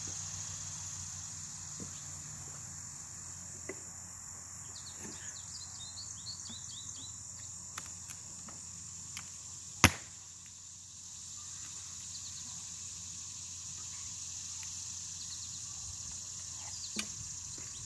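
Steady high-pitched insect trill, with a short run of bird chirps about five seconds in and one sharp knock about ten seconds in.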